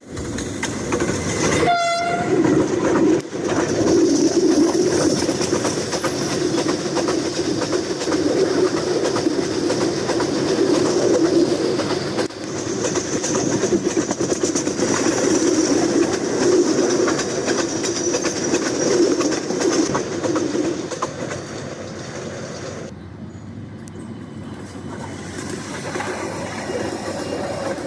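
Train running past with a dense rumble and clatter of wheels over the rails, and a short horn blast about two seconds in. The noise eases and thins out after about twenty seconds.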